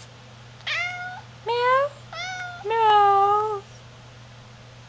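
Domestic cat meowing: four meows in quick succession starting just under a second in, the last one the longest and loudest.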